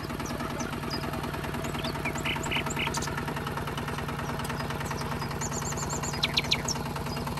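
Tractor engine idling steadily, with an even low drone and fast fine pulsing. A few short high chirps, like birds, sound over it.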